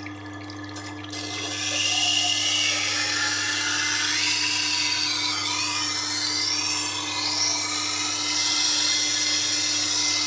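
Tormek T8 wet sharpener grinding a kitchen knife: the blade's edge is drawn across the turning wheel in one pass, a scraping hiss with high squealing tones that glide up and down, starting about a second in over the machine's steady motor hum.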